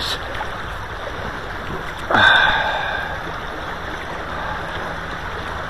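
River current running steadily over a riffle. About two seconds in, a brief louder sound sweeps down in pitch and fades over about a second.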